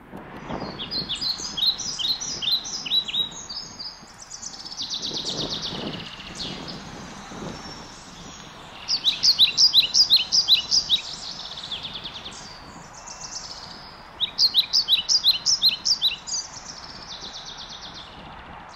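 Wild songbirds singing: three phrases of quick, high, repeated notes, with faster trills between them.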